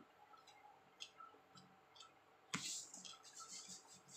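Faint eating sounds: chewing and small mouth clicks, with one sharp click a little past halfway followed by a short rustle.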